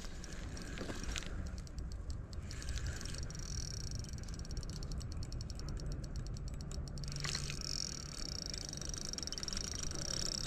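A carp run on a ledgered carp rod: the reel's free-spool ratchet clicking very fast with a high steady tone as a fish pulls line off. It starts about three seconds in, breaks off briefly around seven seconds and picks up again.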